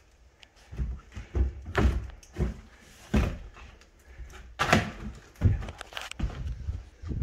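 About a dozen irregular thuds and knocks of a person clambering up into an attic, some heavy and some light.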